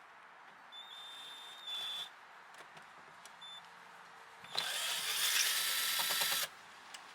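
Cordless drill-driver running for about two seconds, backing out the hidden screw under a car door armrest. A shorter, fainter whine comes about a second in.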